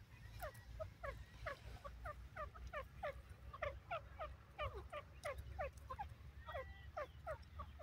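Grey francolin giving a long, even series of short, sharply falling chirps, about three a second, over a low rumble.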